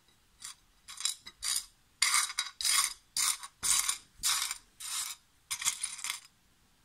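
Rough black and crystal opal pieces stirred by hand on a ceramic plate, the small stones clattering against each other and the glazed dish in about ten short rattling bursts that stop about six seconds in.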